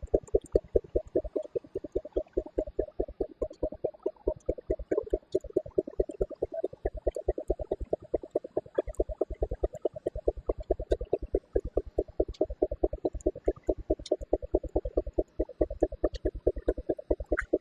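Baker steam traction engine running under load, its exhaust beating in a fast, even rhythm of chuffs as it belt-drives a sawmill.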